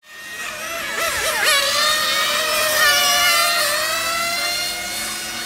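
Small nitro engines of 1/8-scale radio-controlled on-road racing cars running at high revs, with a high-pitched whine that swoops up and down as they accelerate and brake, several cars at once.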